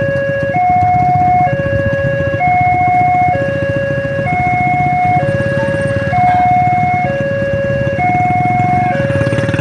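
Railway level-crossing warning alarm sounding, a lower and a higher electronic tone alternating about once a second: the signal that the crossing is closed for an approaching train. Under it is the low rumble of idling motorcycle and car engines waiting at the crossing.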